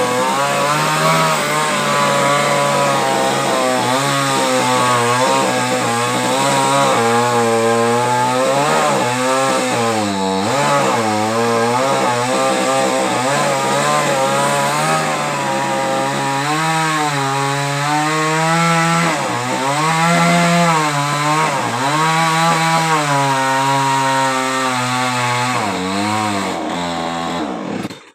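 Two-stroke chainsaw running under load as it cuts through a coconut tree trunk, its pitch dipping and rising again and again as the chain bites and frees. It cuts off suddenly near the end.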